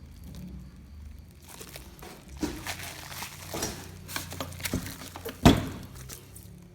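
Packaging crinkling and rustling as an item is handled out of its box, with a sharp knock about five and a half seconds in.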